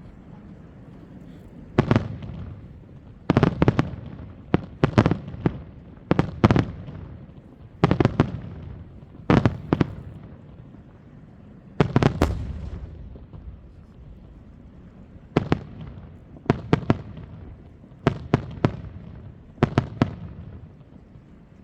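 Aerial fireworks shells bursting: a run of sharp bangs at uneven intervals, some in quick pairs and triples, each trailing off in a low rumbling echo. The first comes about two seconds in.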